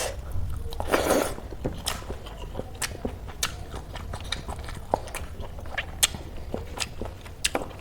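Close-miked eating: chewing and biting food, with many short, sharp wet mouth clicks and crunches at irregular intervals.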